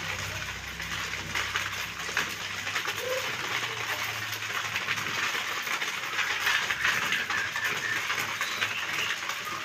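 Rice vermicelli frying in oil in a wok over a gas burner: a steady sizzle, with scattered light ticks.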